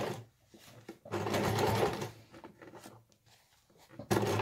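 Electric domestic sewing machine stitching a curved seam in short bursts: it stops just after the start, runs again for about a second, pauses for about two seconds, and starts up again near the end. The stop-start pattern comes from sewing slowly around a curve, pausing to pull pins and flatten the fabric underneath.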